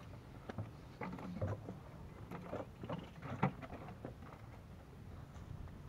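Hollow knocks and clatters of plastic gear being handled: a large plastic water jug set down on the ground and PVC pipe traps moved about in a plastic bucket. The knocks come in a quick irregular run, the loudest about three and a half seconds in.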